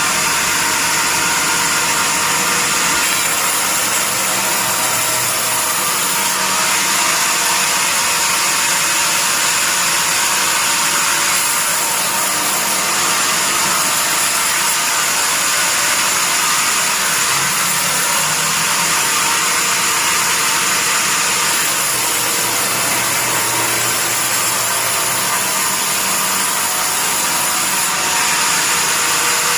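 Band sawmill running steadily: a loud, even, high-pitched hiss that starts abruptly and keeps going without a break.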